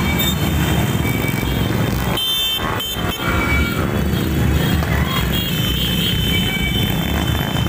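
Motorcycles running as they pass along a street, with music playing over the engine noise.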